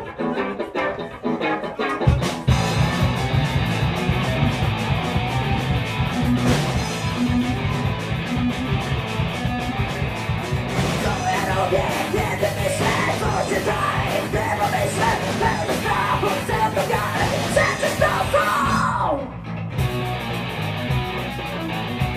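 Hardcore punk band playing live: a guitar alone at first, then drums, bass and distorted guitar come in loudly about two seconds in. A woman's vocals ride over the band in the second half, ending in a long downward slide in pitch, after which the band plays on a little quieter.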